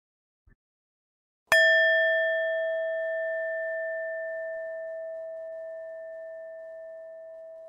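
A meditation singing bowl struck once, about a second and a half in, then ringing on with a clear tone and fainter higher overtones, slowly fading.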